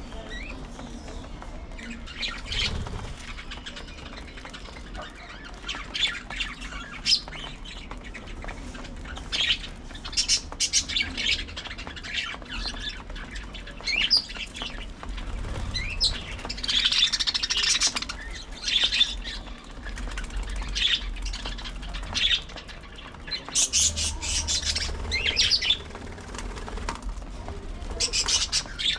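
A flock of budgerigars chirping and squawking in irregular bursts of short, high calls.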